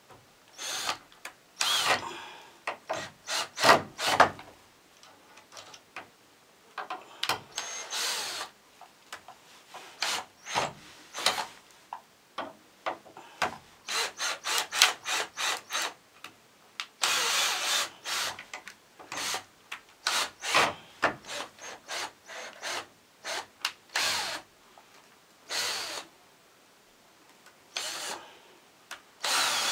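Cordless drill running in many short stop-start bursts, drilling into the wooden boards of a pallet bench.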